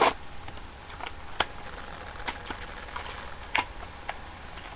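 Trading-card booster pack packaging being handled and opened: irregular sharp crinkles and clicks, the loudest right at the start.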